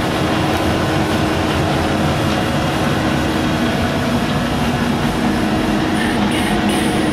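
Steady machinery running noise: a continuous mechanical rumble with an even low hum and no changes.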